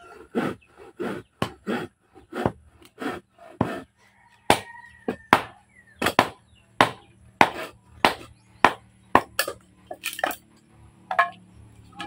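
Bolo knives chopping and splitting firewood: sharp wooden chops about twice a second in an uneven rhythm as two people strike the pieces.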